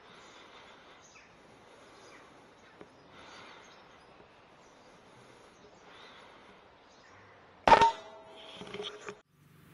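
A single shot from a Daystate Delta Wolf PCP air rifle fired at a magpie, a sharp crack with a brief ring, about three-quarters of the way through; a few softer sounds follow over the next second. Before the shot only a faint, even outdoor background.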